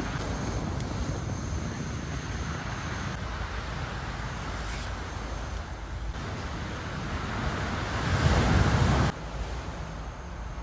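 Wind buffeting the microphone, a steady low rushing noise, with a stronger gust about eight seconds in that cuts off suddenly about a second later.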